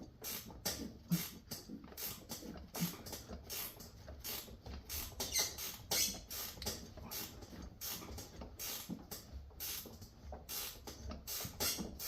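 Ratchet wrench worked back and forth in short, repeated strokes on a tight seat-mounting bolt, which squeaks as it turns.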